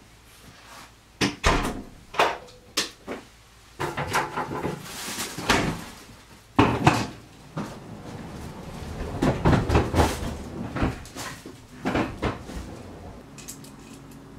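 Someone moving about a small apartment room: a run of sharp knocks and clicks, then busier clunks and rustling as things are handled and doors or cupboards are opened and shut.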